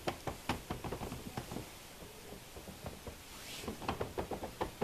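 IKEA MALM king bed with SULTAN LURÖY wooden slats creaking and clicking under a person's shifting weight: a quick run of sharp clicks, fewer in the middle, then another run near the end. This is the unwanted noise that persists even though the hardware is tightened and the middle SKORVA rail is propped with magazines.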